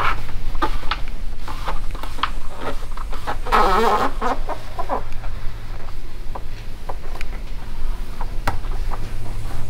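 Light taps and rubbing as hands press a rubber weatherstrip seal onto the top of a Jeep YJ's windshield frame, over a steady low hum. A short wavering call sounds about three and a half seconds in.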